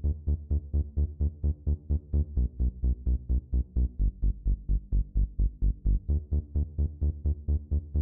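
Electronic background music with a steady, fast pulsing beat.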